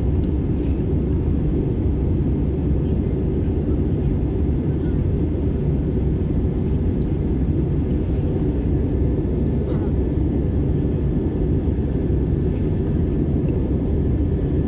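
Steady low roar of an Airbus airliner in flight, its jet engines and rushing airflow heard from inside the passenger cabin.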